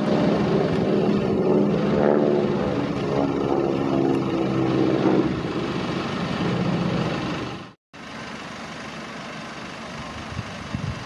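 Aerobatic propeller aircraft flying overhead: a loud, dense piston-engine drone that eases after about five seconds. It cuts off abruptly, and after a brief silence a much quieter steady rumble follows.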